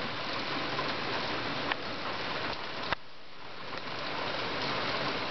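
Heavy downpour: a dense, steady hiss of rain, with two sharp taps, about a second and a half apart, near the middle.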